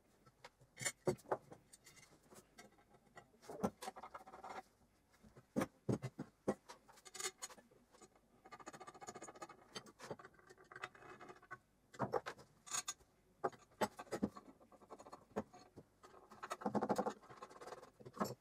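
Hand-assembly on an aluminium plate: small screws and hard plastic feet being fitted and tightened, making irregular clicks, taps and short scrapes, with two longer runs of scraping partway through and near the end.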